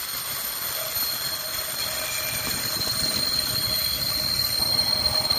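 Empty iron-ore gondola wagons of a freight train rolling past on a curve, wheels rumbling and clattering on the rails, with a steady high-pitched wheel squeal over them.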